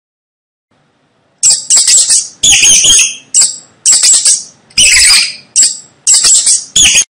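Mouse squeaking: a rapid series of about a dozen short, high-pitched squeaks, some in quick pairs, starting about a second and a half in.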